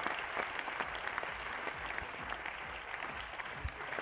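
Audience applauding: steady clapping with many separate claps heard.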